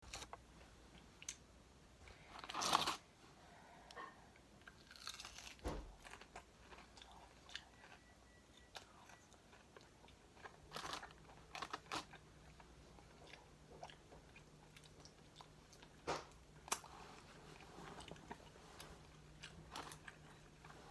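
Crispy fried chicken wings being bitten and chewed close to the microphone: scattered sharp crunches, the loudest about three seconds in, with a low thump just before six seconds.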